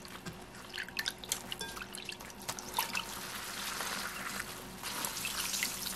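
Water splashing in a glass bowl as soft fried tofu pouches are rinsed by hand. About halfway through they are squeezed out and water trickles and drips back into the bowl.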